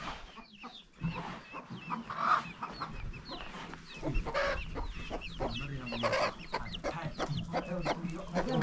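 Chickens clucking and calling, over a steady run of short, high, falling chirps, with louder calls about four and six seconds in.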